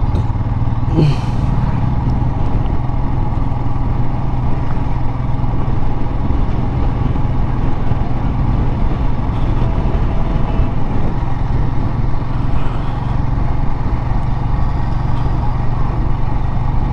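Royal Enfield Himalayan's single-cylinder engine running steadily while the motorcycle is ridden along at low speed, heard from the rider's position.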